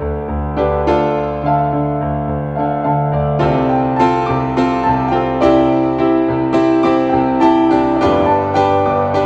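Background piano music: single notes struck and left to ring, coming at about two a second from a few seconds in.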